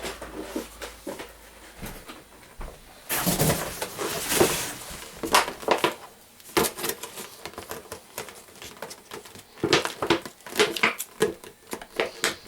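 Packaging of a propane quick-connect hose being opened by hand: crinkling, rustling bursts early on, then a run of small clicks and knocks as the parts are handled.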